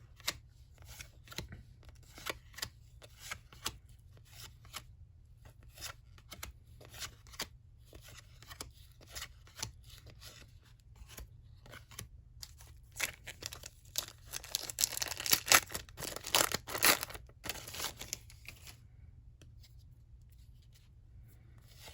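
Trading cards being flipped through by hand, each card going by with a short sharp flick, about one or two a second. Around two-thirds of the way through comes a denser stretch of rustling and tearing, a card pack being ripped open, which is the loudest part.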